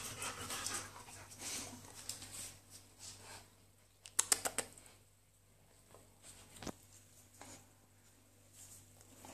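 Dogs' claws clicking and tapping on a tile floor as they move about, with a quick cluster of sharper clicks about four seconds in.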